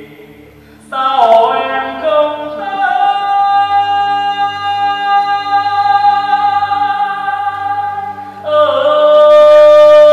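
Traditional Vietnamese water-puppet theatre music: a voice holds long notes, sliding into each new pitch, over a quieter steady accompaniment. The voice comes in about a second in, and near the end it moves to a lower note and grows louder.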